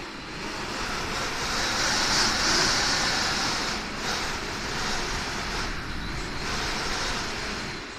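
Typhoon wind gusting in a long rushing swell that builds over the first couple of seconds, holds with small dips, and eases near the end.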